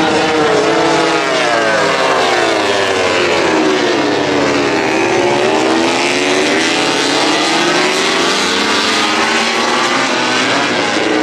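Several MotoGP racing motorcycles with 1000 cc four-cylinder four-stroke prototype engines passing together through a turn. Their engine note falls over the first few seconds as they slow for the corner, then climbs again as they accelerate out.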